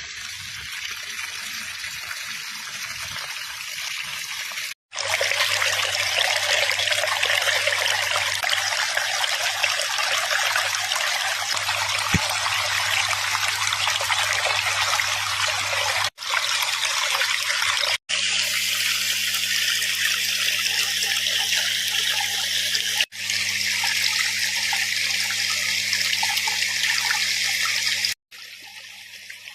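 Water rushing out of dam spillways: a steady wash of noise across several separate clips, joined by abrupt cuts about 5, 16, 18, 23 and 28 seconds in. A low steady hum sits under some of the clips.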